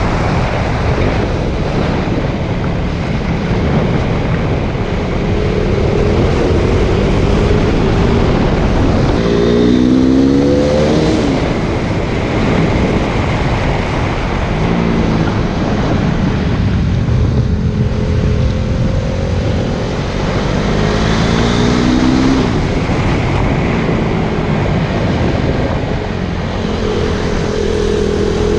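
KTM Duke 390's single-cylinder engine, on its stock exhaust, pulling hard and winding up through the revs several times with drops between, as in repeated acceleration and gear changes. Heavy wind rush over the microphone runs under it.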